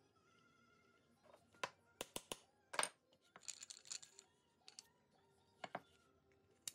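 Wooden wheels and toy body parts being handled and fitted together, giving scattered sharp wooden clicks and knocks. Three quick clicks come about two seconds in, followed by a louder knock, and a brief scraping rustle comes a little later.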